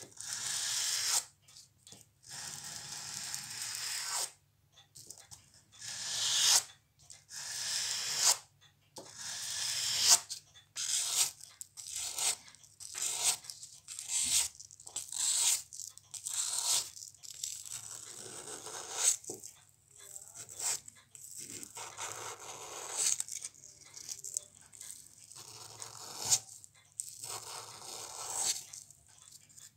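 Black abrasive paper rasping against a metal watch case ring in repeated back-and-forth strokes. The first strokes are long, about a second each. After about ten seconds they become shorter, quicker and softer, at one to two a second.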